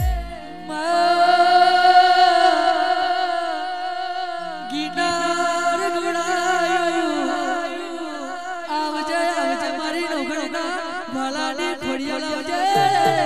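Male folk singer in a Gujarati devotional regadi, singing long, drawn-out notes with wavering ornaments in an alap-like passage, with almost no drum beat under the voice.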